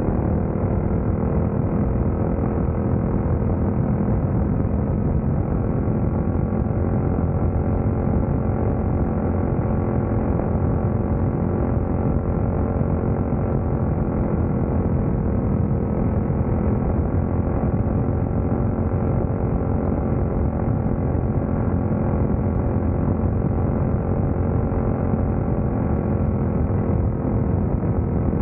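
Engine of a caged dirt-track race car running hard, heard from on board, holding a steady note with small rises and falls in pitch.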